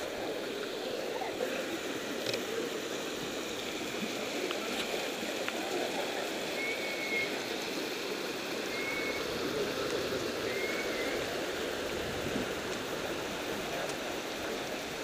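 Shallow, fast mountain creek rushing over rocks: a steady rushing of water. Three short high chirps about two seconds apart sound near the middle.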